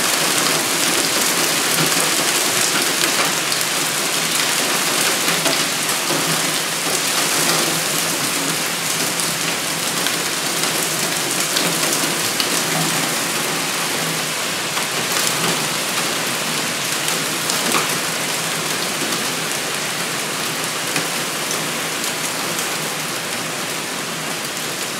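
Heavy rain pouring down in a thunderstorm, a dense steady hiss that eases a little toward the end.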